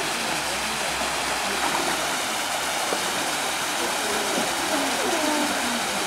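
Steady rushing and splashing of a small waterfall pouring over rock into a pool.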